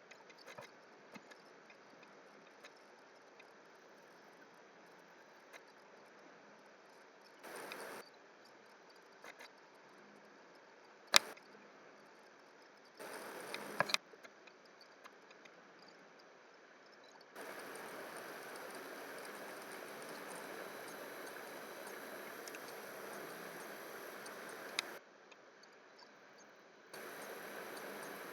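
Quiet room tone with scattered small clicks of computer mouse use, one sharp, loud click about eleven seconds in. Several stretches of steady hiss switch on and off abruptly.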